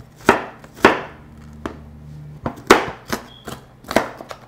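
Kitchen knife rough-chopping an onion on a cutting board: a slow, uneven run of sharp chops, each a knock of the blade on the board.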